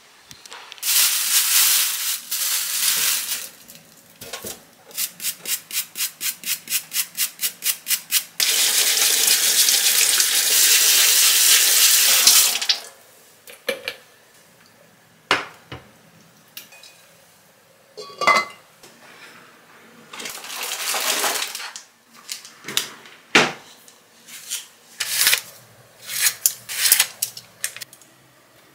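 Kitchen sink tap running in bursts as potatoes are rinsed, the longest and loudest stretch in the middle, with a quick rhythmic run of strokes, about four a second, before it. Short clicks and knocks of kitchen handling come between the runs of water and near the end.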